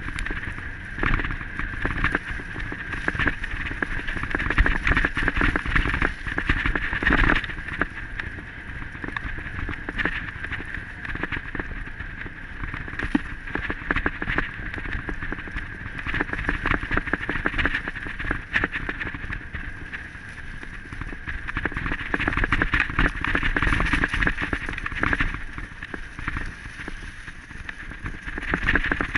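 Wind rushing over a camera moving fast along a dirt trail, with constant rattling and knocks from the jolting ride.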